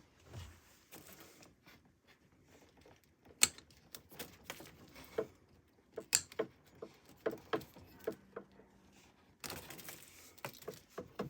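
Irregular clicks and knocks of things being handled and moved inside a small fibreglass boat cabin, with a short rasping scrape a little after nine seconds in.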